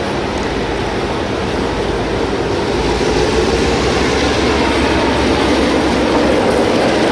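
Diesel-hauled train running on the line, a steady loud rumble that grows a little louder about three seconds in.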